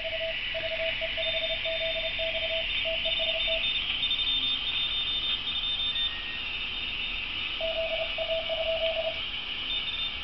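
Morse code (CW) signals received on the 20-metre band through a homebrew phasing receiver built from a FireFly Tayloe-detector board and KK7B's R2pro audio processor and amplifier. One station's mid-pitched tone keys on and off for the first few seconds and again near the end, while a second station's much higher-pitched tone keys through the middle, over steady receiver hiss.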